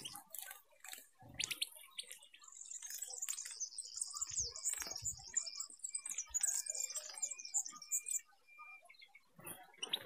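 Small finches singing: a fast, high twittering song that runs for several seconds from about three seconds in, with a thin whistled note repeated beneath it. A few soft knocks come early and midway.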